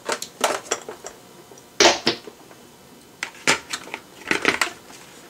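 Clicks and knocks of a plastic stand-mixer bowl being unlocked from the mixer base, lifted off and handled, with the mixer switched off. The loudest knock comes about two seconds in, then a run of quicker clatter a little later.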